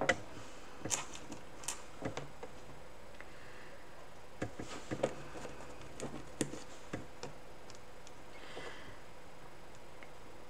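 Small buttons clicking lightly against each other and the tabletop as they are picked from a loose pile and pressed onto a glued canvas: a dozen or so sparse, brief clicks that thin out over the last few seconds.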